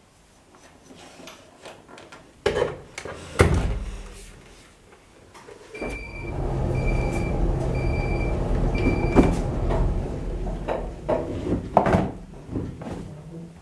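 Bauknecht WA 9350 washing machine: a few sharp clicks and knocks, then a steady running sound for about four seconds with four short high beeps evenly spaced, then more clicks and knocks near the end.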